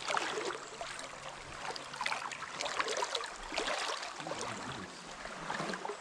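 River water flowing and splashing: a steady wash dotted with many small splashes.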